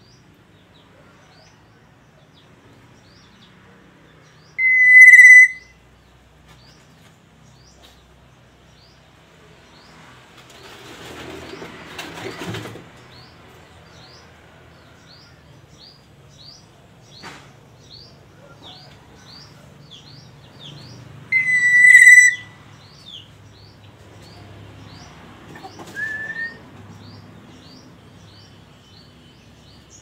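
Black-naped oriole calling: two loud calls, each about a second long and held on one pitch, some sixteen seconds apart, then a shorter, softer rising note near the end. Faint high chirps repeat about twice a second in the background.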